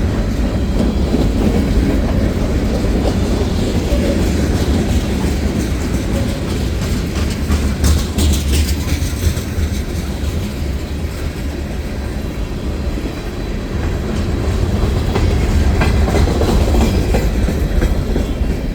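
Freight train cars rolling past at close range, a steady heavy rumble with wheels clicking over the rail joints, including a quick run of sharper clicks about halfway through.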